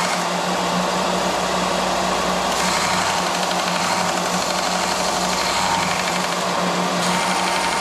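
Bench sander running steadily with a constant hum, grinding the edge of a small metal piece held against it.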